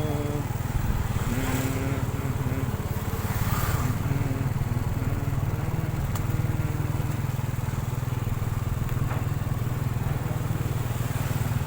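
Steady low rumble of a motorcycle engine running, with faint humming or voice now and then.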